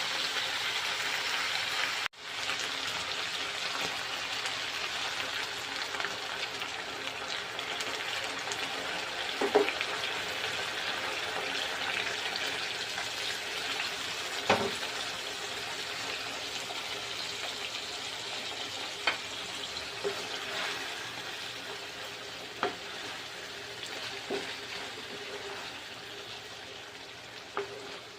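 Food sizzling as it fries in a pan, with scattered sharp clicks of a utensil against the pan as it is stirred. The sizzle cuts out for an instant about two seconds in and grows gradually quieter toward the end.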